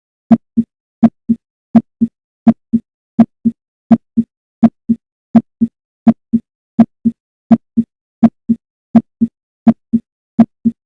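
Normal heart sounds heard through a stethoscope bell at the tricuspid area: a steady lub-dub, two short low thumps (S1 and S2) per beat at about 80 beats a minute, with silence between beats.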